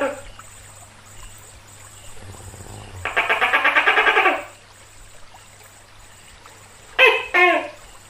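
Tokay gecko calling: a rapid pulsed croaking rattle lasting about a second and a half, then a few seconds later two short loud notes, the 'to-kek' call.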